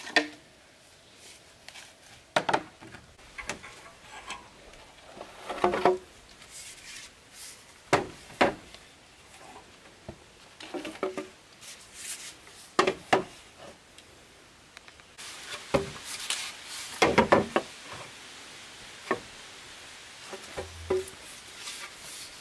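Hollow green bamboo poles knocking and clattering against each other as they are picked up, carried and laid side by side, in irregular knocks, some with a short hollow ring, busiest about two-thirds through.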